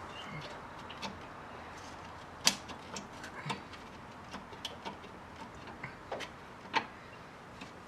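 Irregular light clicks and clinks of hand tools and small engine parts being handled, with a sharper knock about two and a half seconds in and another near the end.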